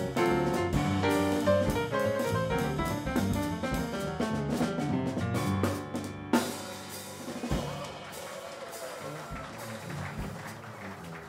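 Jazz piano trio playing: piano, upright double bass and drum kit. About six seconds in a sharp accent hits, after which the playing turns quieter and sparser.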